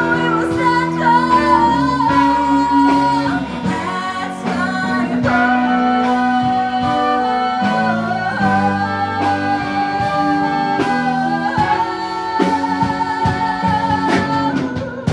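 A female vocalist singing into a microphone in long held notes, backed by a small live band.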